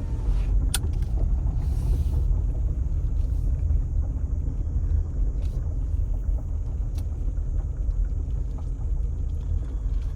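Steady low rumble of a car driving, heard inside the cabin with the windows rolled up, with a few light clicks.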